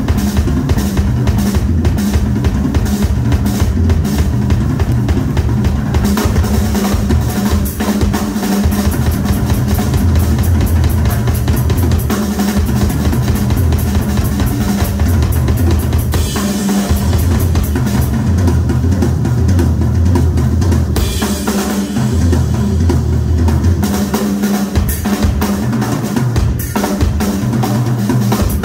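Live rock drum solo on a large chrome Ludwig kit: fast, dense strokes across the toms, snare and twin bass drums, with stretches of cymbal wash a little past the middle.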